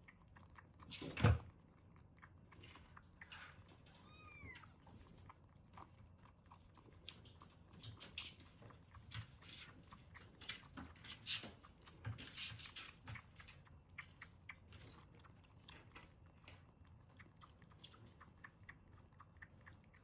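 Tabby kitten suckling milk from a nursing bottle, making a run of small wet clicks and smacks. A short kitten mew comes about four seconds in, and there is a single louder thump about a second in.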